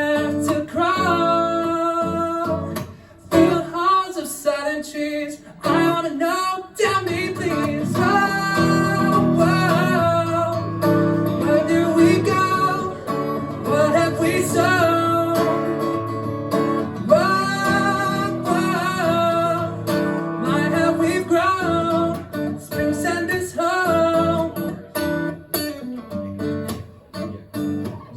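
A song performed live: a voice singing over a strummed acoustic guitar.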